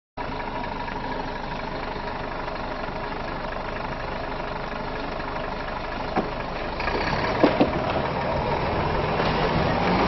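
Volvo semi-truck's diesel engine running slowly and steadily as the truck creeps over a wooden plank bridge. A knock comes about six seconds in and two sharp knocks about a second later, and the sound grows gradually louder toward the end.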